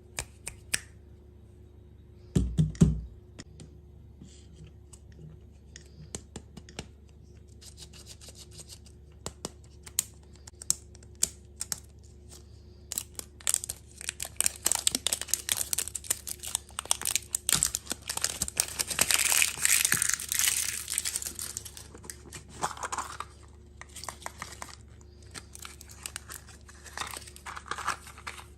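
Plastic food packaging crinkling and tearing as it is unwrapped, with many small clicks and rustles. There is a dull thump about two and a half seconds in, and a long louder spell of crinkling in the middle.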